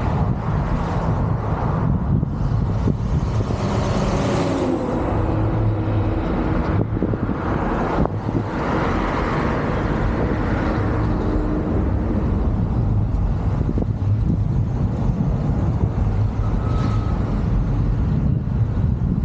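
A car on the move: steady road and wind noise, a dense low rumble that flutters throughout. A fainter hum rises through it a few seconds in and fades out past the halfway point.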